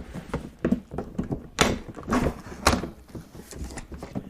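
Cardboard box being opened and handled: a handful of separate thumps and knocks, with a short ripping scrape about one and a half seconds in.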